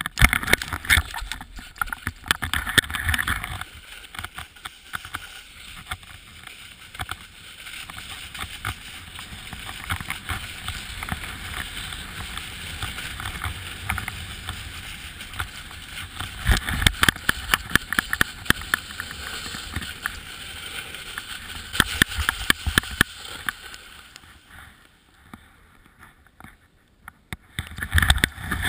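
Skis or snowboard sliding and scraping over packed snow at speed, a steady hiss full of fine crackles, with wind buffeting the GoPro's microphone in low rumbling gusts. It goes quieter for a few seconds near the end, then the scraping and wind rise again.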